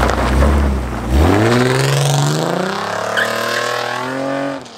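Nissan 300ZX's V6 accelerating away hard: a low rumble, then from about a second in the revs climb steadily. The sound cuts off suddenly near the end.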